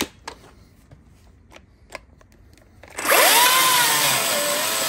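A few light clicks as the Makita cordless electric chainsaw is handled. About three seconds in, its motor starts up suddenly with a high whine and the chain cuts into a wooden sleeper. The pitch rises, then drops and wavers as the chain bites under load.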